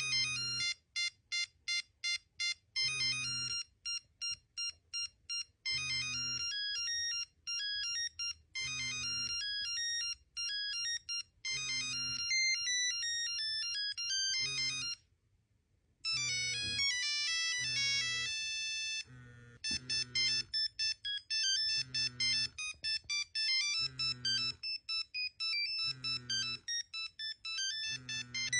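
Nokia mobile phone ringtones playing: bright, beeping electronic melodies over a bass pulse about every one and a half seconds. The sound stops briefly about halfway through, then another ringtone starts.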